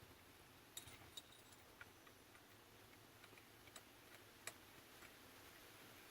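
Faint, irregular small metal clicks, a handful over several seconds, as steering wheel puller bolts are started by hand into the steering wheel's aluminum hub.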